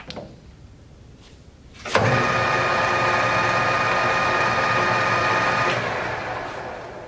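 Harrison M300 engine lathe starting up about two seconds in, its spindle and geared headstock running with a steady whine. Near the end it slows and winds down.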